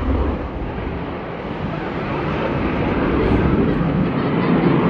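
Jet noise from an RCAF CF-18 Hornet's twin turbofan engines, a steady noise that grows steadily louder over the last few seconds as the jet comes in low over the airfield.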